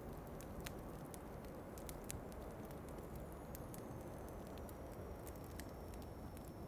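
Wood fire crackling in a fireplace, with scattered sharp pops and ticks over a steady low rush of wind. A faint thin high whistle slowly sinks in pitch from about halfway in.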